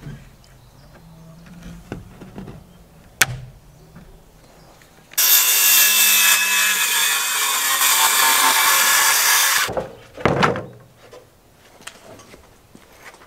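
Cordless circular saw cutting through a sheet of plywood: a loud, steady cut of about four and a half seconds that starts around five seconds in and stops sharply, followed by a short knock. A single sharp click comes earlier, about three seconds in.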